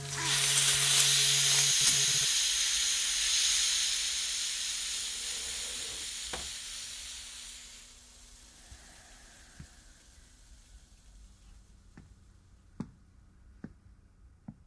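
A loud hiss starts suddenly and dies away over about eight seconds, followed by a few faint, scattered clicks.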